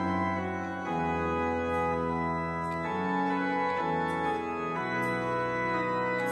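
Church organ playing slow held chords that change about once a second, with faint metallic clinks about once a second from the chains of a thurible being swung.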